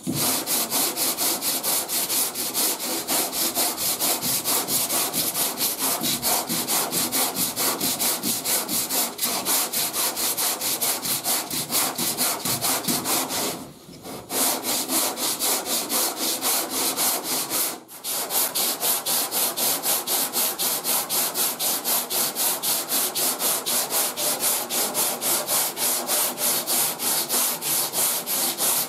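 40-grit sandpaper on a hand sanding board rasping over hardened body filler, in quick back-and-forth strokes about three a second under light pressure. It stops briefly twice, about 14 and 18 seconds in.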